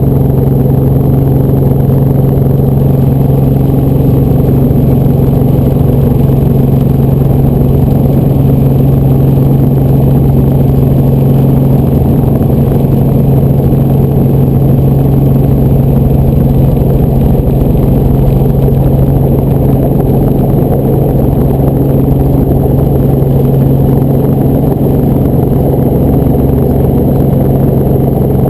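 Helicopter cabin noise: the engine and rotor drone steadily at a constant low pitch, with a thin high whine over it.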